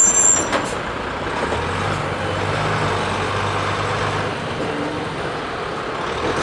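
Diesel engine of a box lorry coming up to a level crossing and driving across, a steady low engine hum over tyre and road noise. A couple of faint clicks sound about half a second in as the crossing barriers lift.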